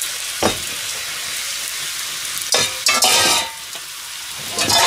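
Hiroshima-style okonomiyaki (batter crepe and cabbage) sizzling steadily in a frying pan. A click comes about half a second in, and a loud burst of clatter and sizzle around three seconds in as the metal lid comes off the pan, with another short clatter near the end.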